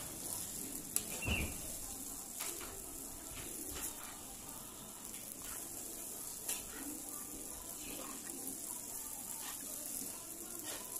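Rice noodles, mustard greens and bean sprouts sizzling in a large wok as they are stir-fried, with scattered scrapes and clicks of a metal spatula against the pan.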